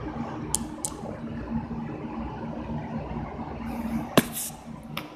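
Schleich plastic toy horse figurines handled and tapped on a wooden floor: a few sharp clicks, the loudest about four seconds in, over a steady low hum.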